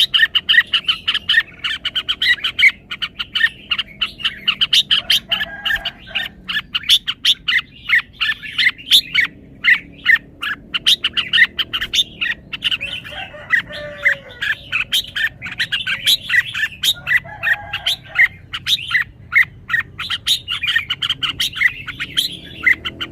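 Red-whiskered bulbul singing a fast, continuous run of short chirping notes and phrases.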